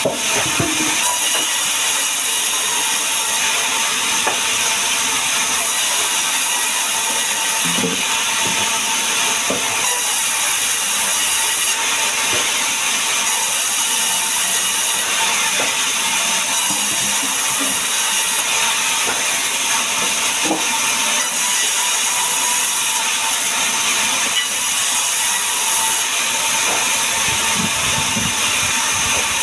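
Vertical band saw running and cutting through logs, a steady loud noisy whine with a thin steady tone in it. Now and then a knock of wood on the saw table.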